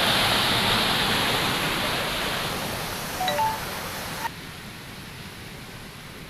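Heavy rain and water rushing over an overflowing dam, a steady loud rushing that thins after about two seconds, with a few short high blips just past three seconds, then drops suddenly to a quieter hiss about four seconds in.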